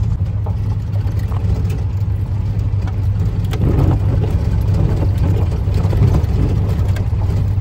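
Van driving on a gravel road, heard from inside the cab: a steady low drone of engine and tyres, with scattered small knocks and rattles.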